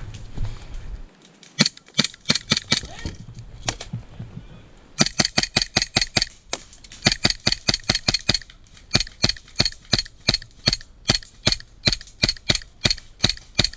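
Airsoft gun firing single shots in quick succession: a few sharp snaps, then a long run of shots at about three to four a second.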